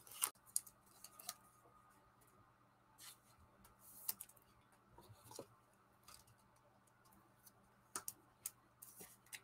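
Faint plastic rustling and scattered light clicks of a trading card being handled and slid into a clear plastic sleeve, with a few sharper clicks about a second in and near the end.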